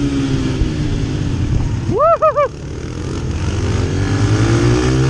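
Dirt bike engine running on a flat track, under a lot of wind noise, held low through a turn and then rising in pitch as it accelerates near the end. The rider gives a short "woo-hoo-hoo" whoop about two seconds in.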